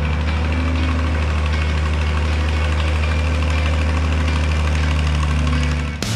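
Engine of a boatyard travel lift running steadily at a low, even pitch as the lift carries a sailboat in its slings.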